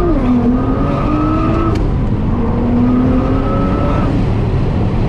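Nissan GT-R's twin-turbo V6 under full throttle through a titanium midpipe and cat-back exhaust, heard from inside the cabin. The revs climb, drop sharply twice as it shifts up, near the start and about two seconds in, and the engine note falls away about four seconds in as the throttle is lifted.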